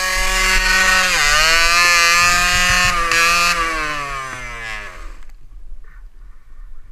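Kawasaki KDX125's two-stroke single-cylinder engine revving high and steady. The pitch drops about a second in, then sags further and the engine cuts out about five seconds in.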